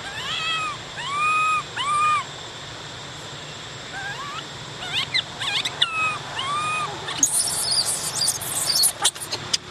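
Infant long-tailed macaque crying: a run of high, whistle-like arched coos, three in the first two seconds and more, some rising sharply, between about four and seven seconds in, the cries of a baby being weaned. In the last two seconds a harsher, hissing scuffle with sharp clicks takes over.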